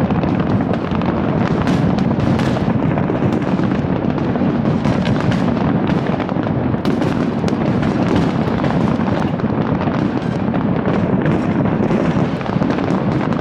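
Large fireworks display: a dense, unbroken barrage of overlapping bangs and crackling bursts at an even, loud level.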